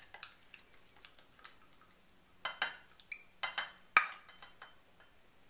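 A utensil clinking and tapping against a pitcher as dressing ingredients are scraped into it: a scattered series of sharp clinks, the loudest about four seconds in.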